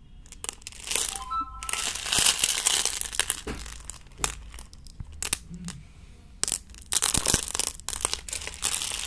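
Polished snowflake obsidian cabochons clicking and clattering against one another as a hand scoops and sifts through a heap of them, in quick irregular runs of clicks with short pauses.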